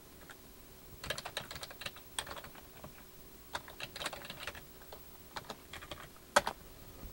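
Typing on a computer keyboard: a few short runs of key clicks with pauses between, and one louder key strike near the end.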